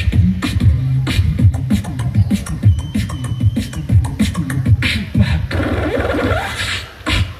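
Live beatboxing amplified over a PA: fast vocal percussion with deep kick-like thumps and sharp snare-like clicks, breaking off briefly near the end.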